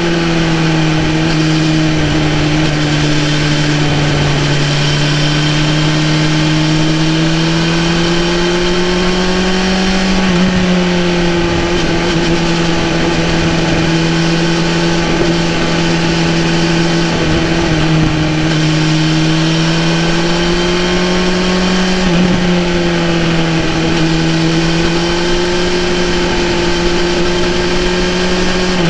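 2018 BMW S1000RR's inline-four engine running at steady cruising revs under way, its pitch easing down a little and climbing back a couple of times, with wind rush over the bike.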